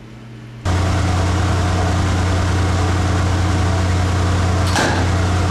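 A loud, steady low machine hum starts suddenly under a second in. About four and a half seconds in, a short sharp burst cuts through it: a pyrogen charge of potassium nitrate and sugar firing and driving out a PVC parachute-ejection piston.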